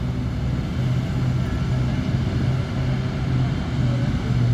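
Heavy diesel mining machinery running steadily, a low engine drone that swells and dips in a rough pulse about every half second.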